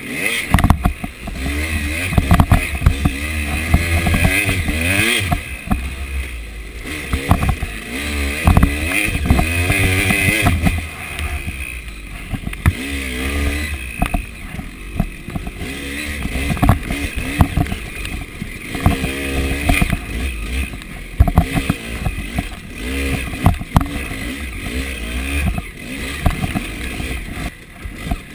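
KTM 300 two-stroke dirt bike engine revving up and down again and again as it is ridden over rough trail, with frequent knocks and clatter from the bike bouncing over ruts and roots.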